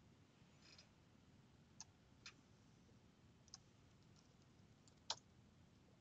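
A handful of separate faint clicks from a computer's pointing device as cells are selected and dragged, the loudest about five seconds in, over near-silent room tone.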